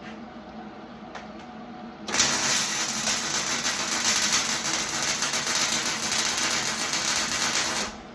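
A farm machine's engine runs steadily. About two seconds in, a much louder rushing machine noise starts abruptly and runs for about six seconds before cutting off sharply.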